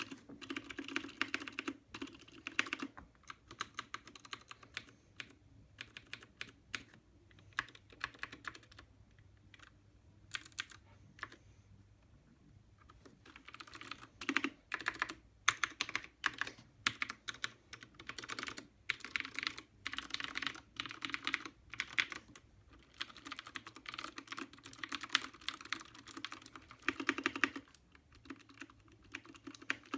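Typing on a mechanical keyboard with lubed Cherry MX Blue clicky switches: quick runs of keystrokes, sparser between about three and thirteen seconds in, then dense again.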